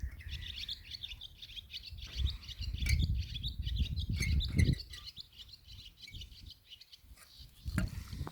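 Emax 2205 1900kv brushless motor spinning with a bad bearing, giving a dry, chirping rattle. It is loudest for the first five seconds or so, then dies down to a fainter rattle.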